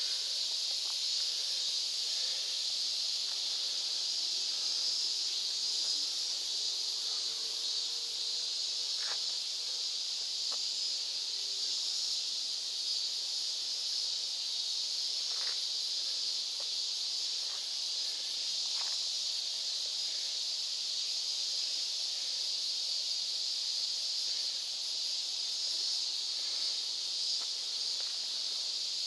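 A chorus of cicadas droning steadily, a continuous high-pitched hiss with no break. A few faint short sounds come through in the middle.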